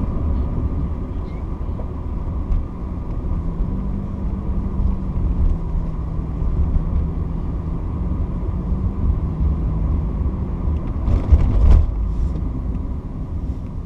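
Car driving: a steady low rumble of engine and road noise, with a louder rush about eleven seconds in.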